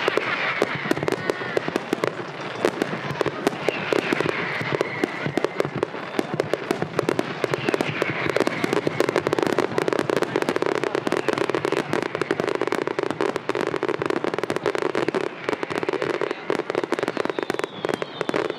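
Fireworks display in a dense barrage: aerial shells bursting and crackling in rapid, unbroken succession.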